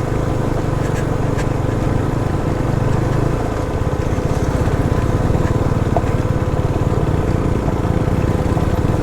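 Motorcycle engine running on the move, with a haze of wind and road noise. About three and a half seconds in, the engine note changes to a steady, pulsing beat.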